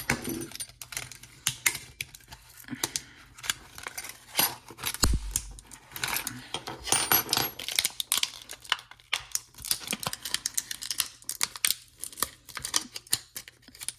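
Many irregular sharp clicks and clinks as the packaging of a three-piece masonry drill bit set is handled and opened, with the bits clinking inside, and a dull thump about five seconds in.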